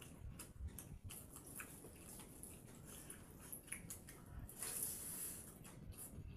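Eating by hand: fingers squishing and mixing wet pakhala rice in steel bowls, with soft chewing and small clicks. A brief louder hiss comes about five seconds in.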